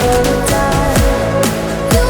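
Electronic dance music with a steady beat, held synth notes and sweeping drops in the bass, no vocals.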